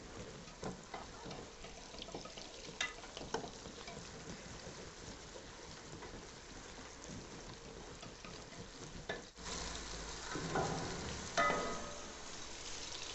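Potato chunks and chopped onion frying in oil in an aluminium pot, a faint steady sizzle, while a wooden spoon stirs them with a few light clicks and scrapes against the pot. The sizzle grows a little louder about nine seconds in.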